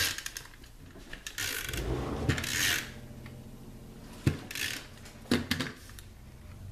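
Cardstock and patterned paper pieces being handled on a craft table: several short rustling, sliding bursts and a few sharp taps as pieces are picked up and set down.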